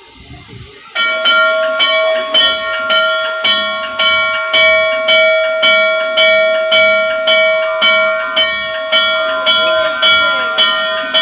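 Norfolk & Western 611 steam locomotive's bell ringing steadily, about two strokes a second, starting about a second in, as the engine moves up to couple to the train.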